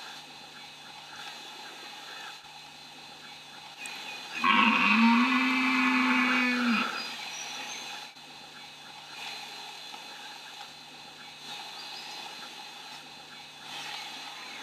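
Red deer stag roaring once, a rutting call: a single long roar starting about four and a half seconds in and lasting about two and a half seconds, rising in pitch at the start and then held level.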